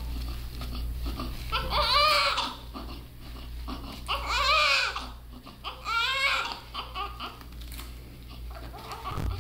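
Newborn baby crying: three short, wavering wails about two seconds apart.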